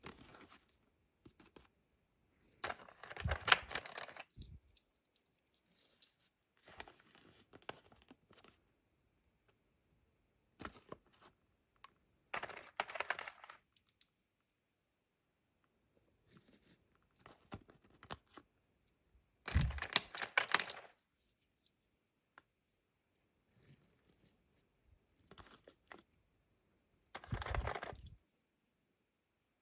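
Kinder Joy egg wrappers and toy packets being torn open and crinkled by hand, in several separate bursts of tearing and rustling with quiet pauses between.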